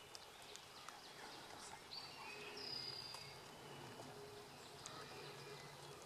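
Quiet spring woodland ambience: faint high, thin bird whistles, one held note near the middle sloping slightly down, with scattered short chirps over a low steady hum.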